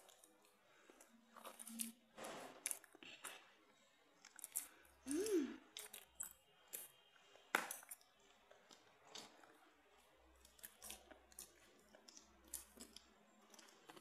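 Quiet eating sounds: metal spoons scraping and clicking against a ceramic mug as they dig out soft sponge cake, with faint chewing. A short pitched hum rises and falls about five seconds in.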